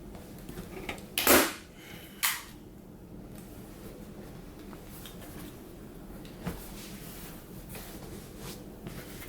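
Two sharp clacks about a second apart, from work on a car's center armrest lid, then a few faint ticks of handling.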